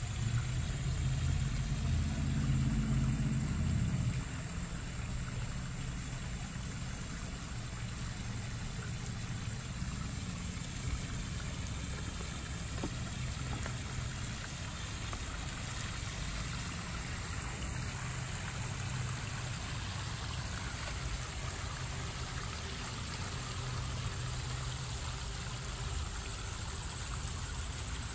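Small backyard pond waterfall splashing steadily into the koi pond. A steady low hum runs underneath, louder for the first four seconds or so.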